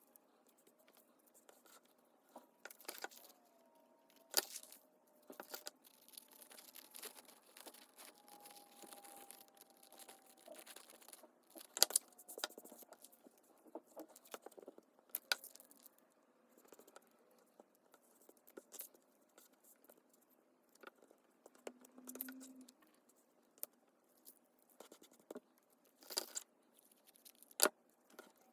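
Paper-crafting handling sounds: cardstock and paper rustling, with irregular light taps and clicks from tools and pieces being set down. Sharper clicks come about twelve seconds in and again near the end.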